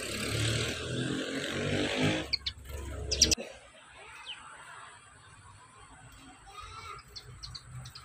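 A loud rumble for about the first three seconds, ending in a few sharp clicks and cutting off suddenly. Then a few faint short chirps and ticks from a Eurasian tree sparrow feeding.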